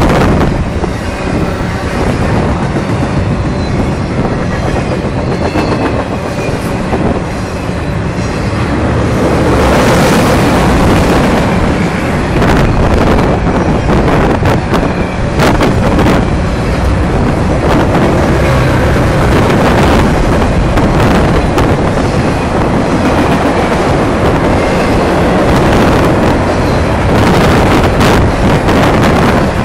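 Freight cars of an intermodal stack train passing close at speed: a steady, loud rumble of steel wheels on rail, broken by many sharp clicks and knocks from the wheels.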